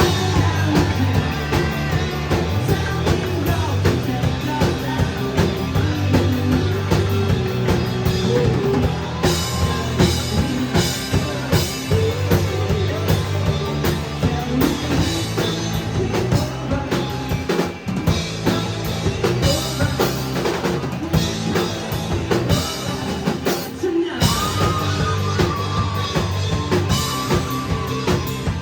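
Live rock band playing loudly: a driving drum kit beat with a steady bass line under a singing voice, dipping briefly and building again near the end.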